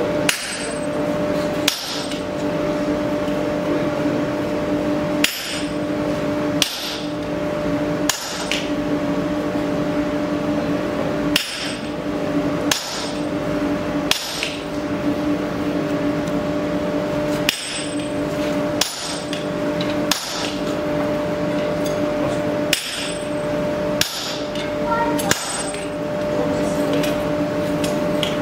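A blacksmith's hand hammer striking a red-hot metal disc held in tongs on an anvil. The sharp ringing blows come mostly in sets of three, about a second and a quarter apart, with pauses between the sets, over a steady hum.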